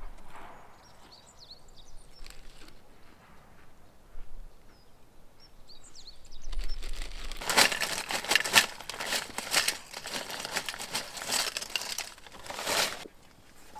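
A few faint bird chirps, then, from about seven seconds in, a crinkling, crackling rustle lasting about five seconds, the loudest sound here.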